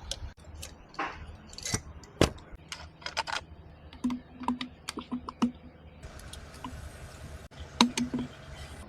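Irregular clicks and light metallic clinks of hand tools and motorcycle engine parts being handled, some with a short ring.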